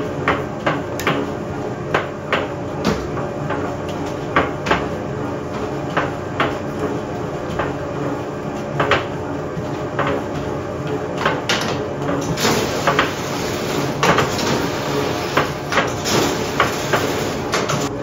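Bakery kitchen work: irregular knocks and clatters of trays and utensils, about one or two a second, over a steady machine hum, with a louder hiss for a few seconds near the end.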